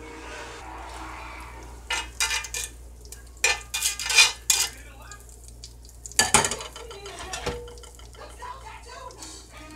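Cast-iron skillet clattering and scraping on the stove in several sharp bursts as it is handled and tilted, over a low steady sizzle of butter melting and bubbling in hot oil.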